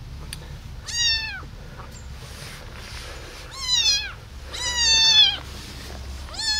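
Tiny tabby kitten meowing loudly: three high-pitched meows, each under a second long, at about one, four and five seconds in, with a fourth beginning at the very end.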